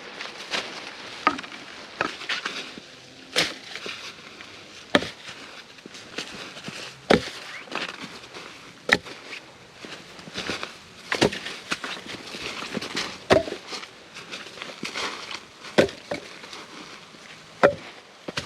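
Oak firewood being worked and broken up: irregular sharp wooden cracks and knocks every second or two, with rustling and scraping between them.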